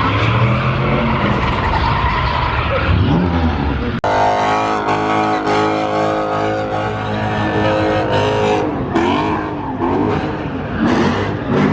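Car engine revving hard with tires squealing through a burnout. The sound cuts abruptly about four seconds in to another stretch of high engine revs that rise and fall.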